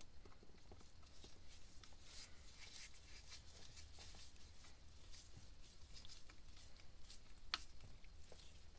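Faint scraping and light clicks of a screwdriver turning the small cover screws on a Yanmar 3YM30's raw-water pump, with one sharper click about three-quarters of the way through.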